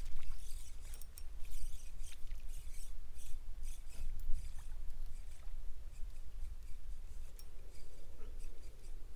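Fishing reel being wound during the retrieve of a surface lure, with many quick, irregular light clicks over a low rumble.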